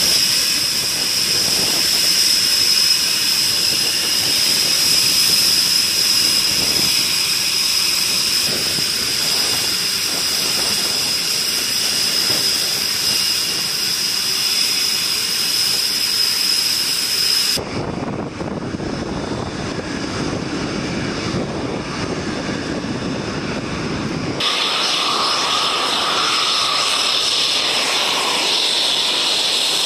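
Military fighter jet engines running on the flight line, a loud steady high whine. About 17 seconds in, the sound cuts abruptly to a lower rushing engine noise, and about 24 seconds in it cuts back to a whining jet.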